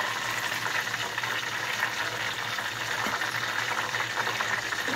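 Hot oil frying in a pan: a loud, steady sizzle with a fine crackle throughout.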